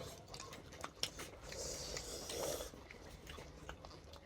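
Faint mouth sounds of eating chicken: quiet chewing and biting with a few small scattered clicks and a soft swell of noise midway.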